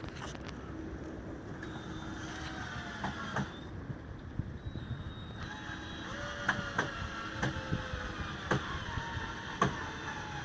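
A power drill driving screws into wooden framing: its motor whirs in runs, with the pitch sagging and rising, and sharp clicks and knocks come in between.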